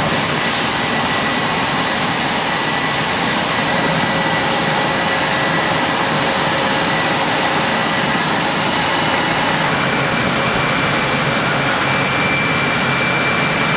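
Loud, steady jet engine noise from carrier aircraft, a dense rush with several high, steady whining tones over it. Its tone shifts abruptly about ten seconds in.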